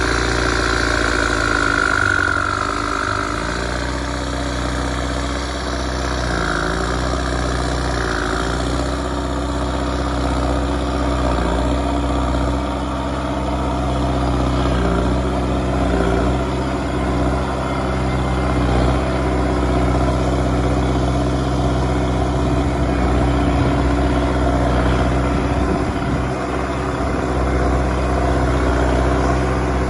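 Ford/New Holland 7740 tractor's four-cylinder turbo diesel running hard under load as its front blade pushes soil, the engine note dipping and picking back up several times as it lugs.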